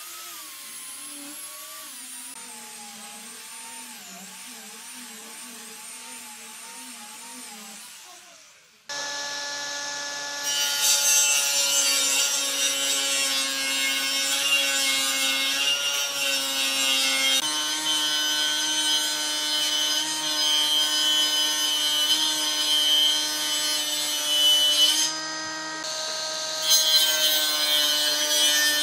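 A small angle grinder with a sanding disc runs against a wooden tabletop, its pitch wavering as it is pressed, and fades out about eight seconds in. Then a table saw runs with a steady hum and rips a wooden plank, adding a loud high hiss. The cutting sound stops briefly near the end and then starts again.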